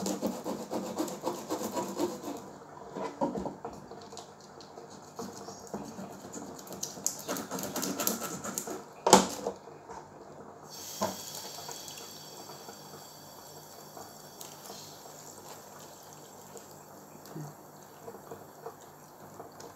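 A knife working raw prawns on a cutting board, with irregular scraping and small knocks and one sharp knock about nine seconds in. From about eleven seconds on, a kitchen tap runs steadily into the sink as the prawns are rinsed under it.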